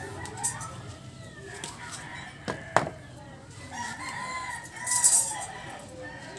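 A rooster crowing in the background, with one long held call starting about four seconds in. A single sharp knock comes shortly before it, and there is brief rustling handling noise during the call.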